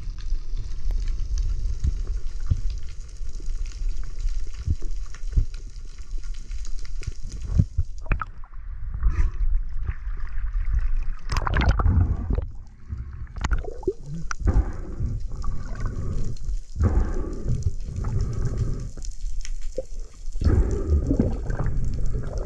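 Water sounds picked up by a camera held underwater: a steady hiss, then irregular gurgling and sloshing surges from about eight seconds in.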